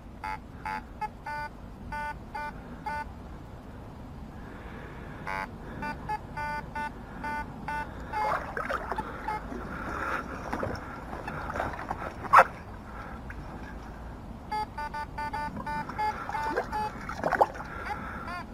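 Metal detector beeping in quick runs of short repeated tones as it is swept over targets, with water sloshing in between and one sharp knock about twelve seconds in.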